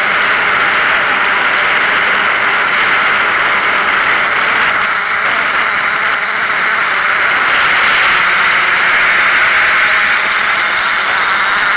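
Multirotor drone's motors and propellers running steadily, heard through its onboard camera as a loud, even whir.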